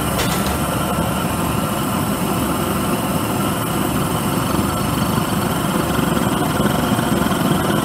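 Propane forge burner with a high-flow waste-oil nozzle running steadily, turned down toward its smallest flame. It gives an even rushing noise with a faint steady hum underneath.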